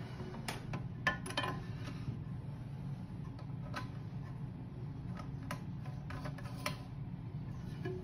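Scattered light plastic clicks and knocks as a new Fluidmaster fill valve is handled and set down into a porcelain toilet tank, over a steady low hum.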